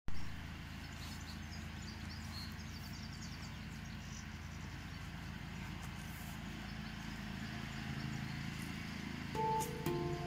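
Lawnmower engine rattling steadily in the background as a low hum. About nine seconds in, a SonidoDeMano D minor handpan starts to play, its first ringing notes coming in over the mower.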